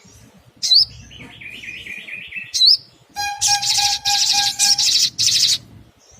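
Olive-backed sunbird calling and singing: two sharp rising call notes with a quick run of repeated notes between them, then about three seconds in a loud, rapid chattering song that lasts a little over two seconds.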